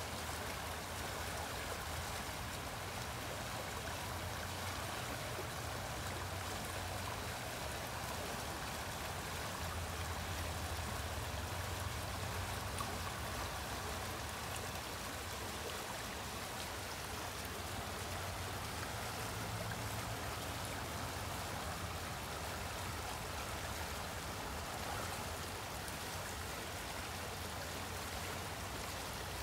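A muddy river swollen by rain, rushing steadily over its rocky bed in a continuous, even rush of water.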